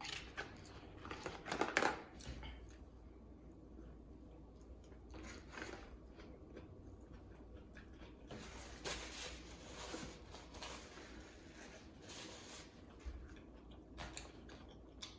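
A person chewing and biting food close to the microphone, with short scattered crunching and mouth sounds.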